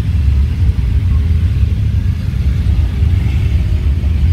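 Adventure motorcycles running at low speed through slow-riding balance drills, under a loud, steady low rumble.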